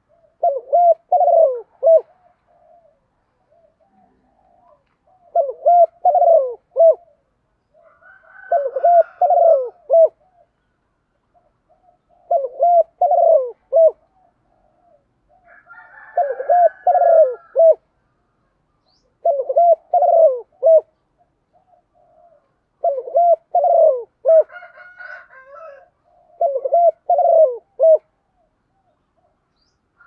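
Spotted dove cooing: a phrase of several quick coos repeated eight times, about one phrase every three and a half seconds, with faint single coos between. This is the male's repeated advertising call, used here from a caged decoy bird to call other doves in.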